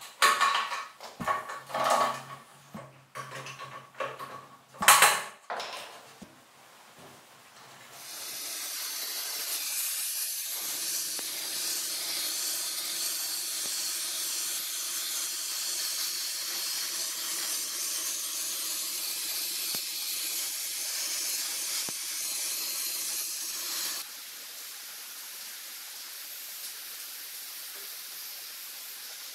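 Metal clanks and knocks as a swingarm is fitted to a bike frame, then the steady, high hiss of an abrasive blasting nozzle stripping a small single-cylinder motorcycle engine's cases. The hiss cuts off abruptly and a quieter steady hiss follows near the end.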